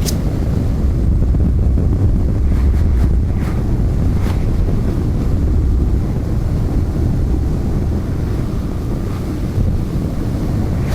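Wind buffeting the microphone: a loud, steady, low rumbling rush of noise.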